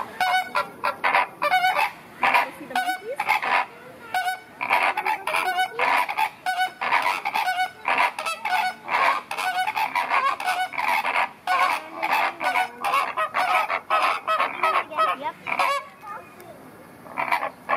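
A flock of flamingos honking: many short, goose-like calls overlapping in rapid succession, thinning out near the end.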